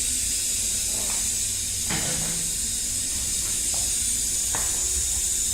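Steady air hiss with a low hum from an automatic rivet-feeding machine and pneumatic rivet gun, powered up with the air supply on, with a few faint clicks about two seconds in and again near the end.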